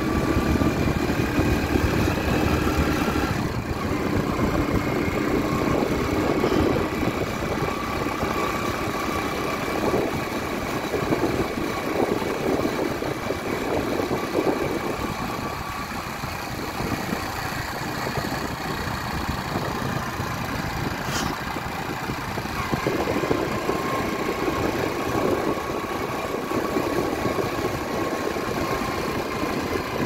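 Motorcycle engine running steadily while the bike rides along, with road noise.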